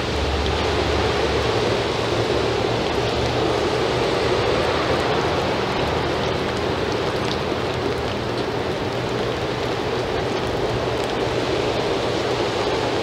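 Steady rain falling on a wet yard, an even hiss that does not let up.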